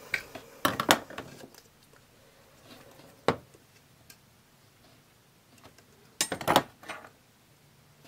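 Small plastic clicks and knocks from a pen and a plastic deli cup being handled on a hard tabletop: a quick cluster about a second in, a single sharp click around three seconds, and another short cluster past six seconds.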